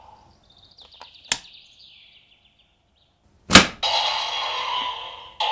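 A toy belt buckle, the DX Dooms Driver Buckle, being loaded with the DX Omni Force Wonder Ride Book. A faint rattle and a small click come first, then one loud, sharp plastic snap as the book is pushed into the buckle. The buckle's electronic sound starts playing right after the snap, with a louder start near the end.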